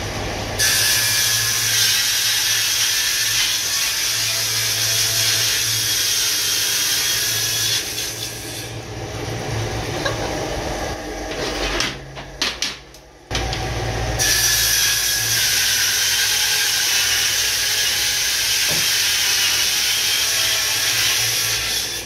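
Table saw cutting a wood-grain laminated particleboard sheet: a loud high-pitched cutting noise over the motor's steady hum for about eight seconds. The saw then runs freer for a few seconds and the sound drops out briefly near the middle. A second cut of about eight seconds follows.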